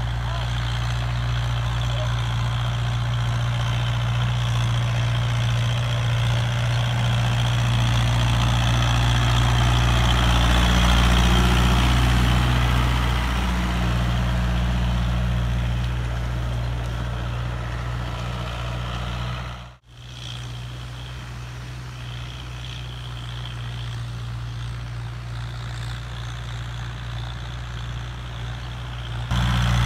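Tractor's diesel engine running steadily under load as it pulls a disc harrow through ploughed soil. It grows louder up to about 11 seconds in, then fades. It cuts out for a moment about 20 seconds in and carries on more quietly.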